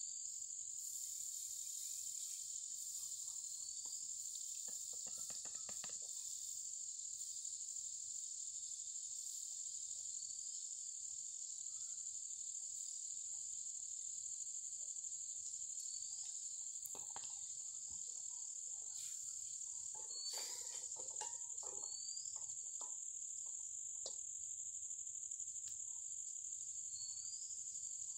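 A continuous high-pitched insect drone, steady in pitch and level, with a short rising chirp recurring every couple of seconds.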